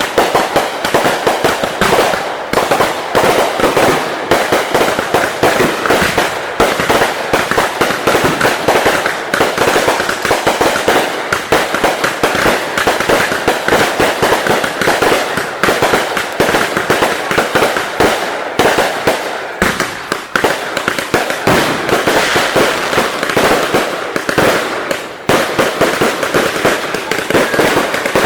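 Fireworks crackling and popping in a dense, unbroken barrage of rapid reports, easing briefly twice in the later part.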